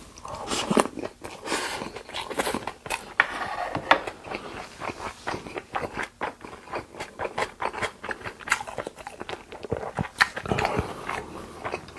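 Close-miked chewing of raw beef: a steady run of quick wet mouth clicks and smacks, irregular and with no pause.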